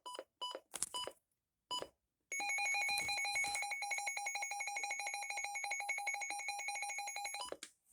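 Midland WR-300 weather radio: a few short beeps as its buttons are pressed, then its alert siren sounding as a steady, rapidly pulsing high tone for about five seconds, which cuts off abruptly near the end.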